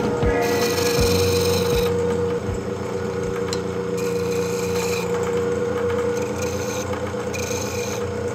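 Wood lathe spinning a wooden tool handle while a turning chisel cuts along it. A steady hum runs under a hissing, rasping cut that comes and goes in several passes.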